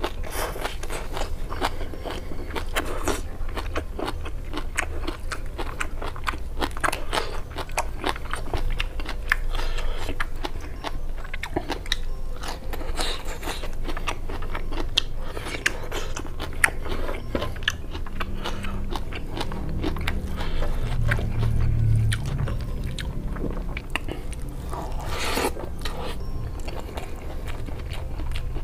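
A person chewing and biting crisp raw vegetables close to the microphone: a dense, irregular run of wet crunches.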